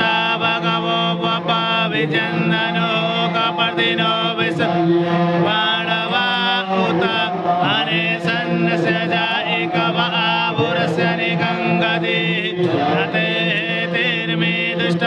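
Vedic Sanskrit mantras chanted continuously during a yagya, with a steady low drone underneath the voices.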